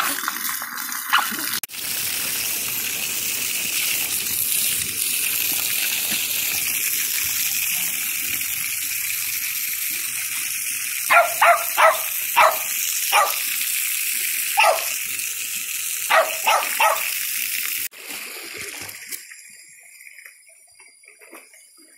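Water gushing steadily onto a pool step, with a Jack Russell terrier giving short sharp barks in quick clusters around the middle. The rushing water cuts off suddenly near the end.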